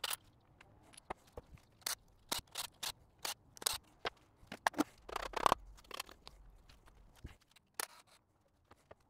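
Irregular metallic clicks and clinks of hand tools and fasteners on a bare engine block while parts are being removed, with a longer rasping sound about five seconds in.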